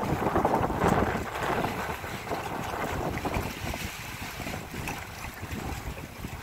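Wind buffeting the microphone over water rushing and splashing past a moving boat's hull, loudest in the first second or so and then easing off.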